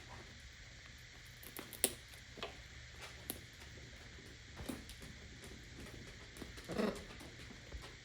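Parrot working at a nut with its beak: scattered sharp cracks and clicks of shell being bitten and gnawed, the loudest about two seconds in and a cluster near seven seconds.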